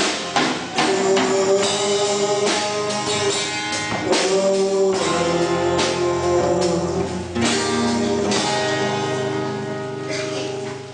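Amplified acoustic-electric guitar strummed in a gospel song, with a man and a woman singing along through microphones.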